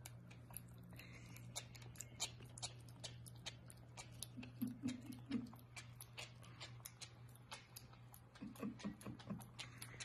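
Mini piglet eating scrambled eggs: rapid, faint smacking and chewing clicks, with two short runs of soft grunts, one about halfway through and one near the end.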